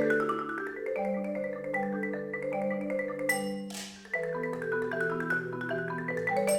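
Two marimbas playing a brisk tune of short, quickly repeated mallet notes over a lower moving part. About three and a half seconds in, a brief hissing swish cuts across the notes.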